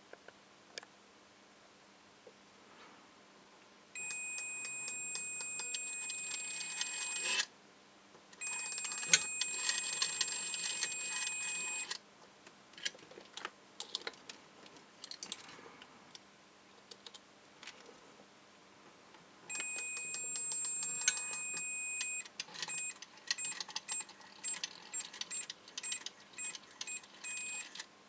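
Multimeter continuity beeper: a steady high beep held for a few seconds, three times, then chopped into a run of short beeps, about two a second, as the Socotel rotary dial is turned by hand and its contacts open and close. Light clicks and rattles of the dial and the test leads come between the beeps.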